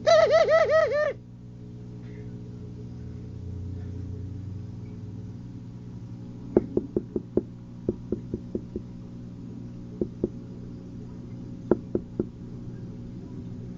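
A pigeon cooing for about a second at the start, a warbling call, then a scattering of sharp taps or knocks, first a quick run of about ten and later a few in pairs, over a steady low hum.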